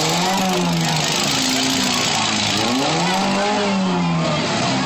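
Demolition derby vehicles' engines revving up and down in repeated rising and falling swells, over a loud, steady rush of noise.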